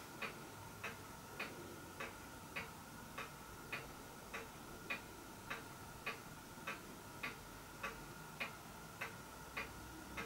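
Faint, steady ticking at a little under two ticks a second, like a clock, over a faint steady hum.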